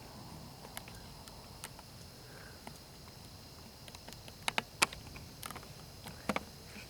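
Scattered sharp pops and clicks over a quiet background, with a quick cluster of three about four and a half seconds in.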